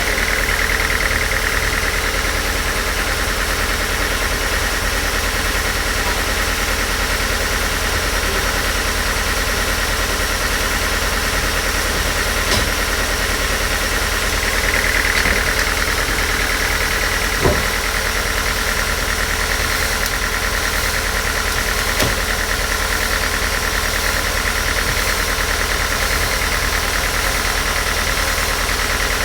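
A machine's motor or engine running steadily, with a few separate sharp clicks or knocks.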